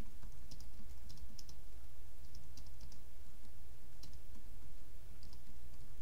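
Computer keyboard typing: irregular, quick key clicks, over a steady low hum.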